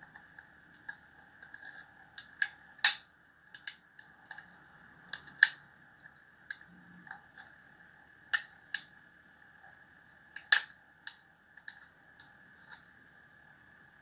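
A plastic bottle being cut apart by hand: irregular sharp clicks and cracks of the plastic, about a dozen, the loudest about three seconds in and again about ten and a half seconds in.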